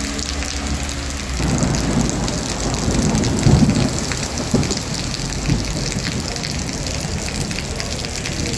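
Heavy rain pattering steadily. A low rumble swells from about a second and a half in and peaks around three and a half seconds, followed by two short thumps.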